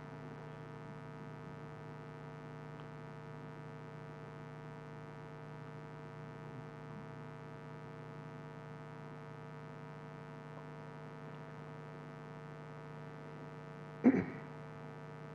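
Steady electrical mains hum from the sound system, a low buzz made of several steady tones stacked together. About a second before the end comes a single short, loud sound.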